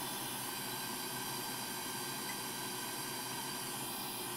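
Steady background hiss with faint even tones and no distinct events.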